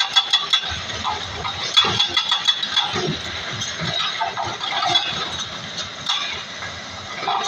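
Komatsu excavator engine running, with repeated metallic clinking and rattling throughout.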